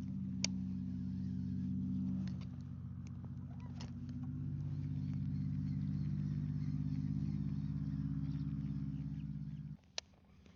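An engine running steadily, its note shifting a little after two seconds in, then stopping abruptly near the end, followed by a sharp click.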